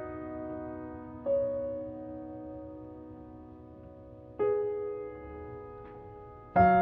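Slow, soft piano background music: single notes and chords struck every few seconds, each left to ring and fade.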